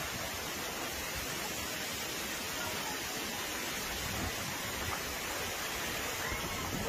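Heavy rain mixed with hail pelting a street and pavement in a hailstorm: a dense, steady hiss.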